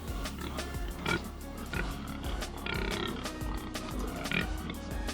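Background music with a steady beat, with pigs calling underneath it.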